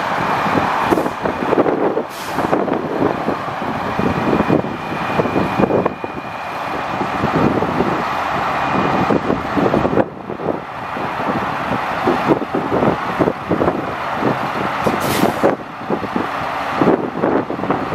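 The truck's Caterpillar C7 inline-six diesel runs steadily, driving the hydraulic hoist that raises the dump body. A faint high steady whine sounds through the first half, and two brief hisses come about two seconds in and near the end.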